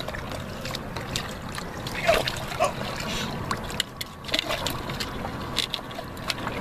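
Shallow water splashing and sloshing around people wading and holding a goliath grouper, with scattered small splashes and knocks. There is a louder burst of sound about two seconds in.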